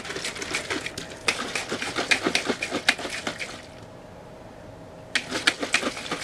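Plastic shaker cup being shaken to mix drink powder into water: quick, irregular sloshing and knocking that stops for a moment a little past halfway, then starts again.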